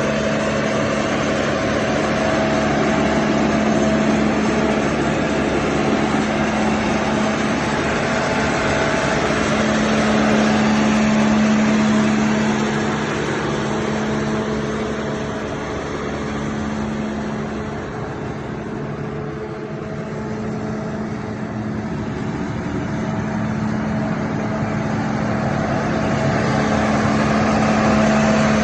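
John Deere 310D backhoe's four-cylinder diesel engine running steadily, briefly quieter about two-thirds of the way through.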